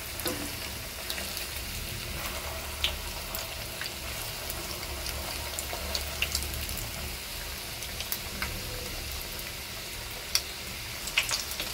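Spring rolls dipped in egg batter deep-frying in refined white oil in a pan, a steady sizzle with scattered small pops.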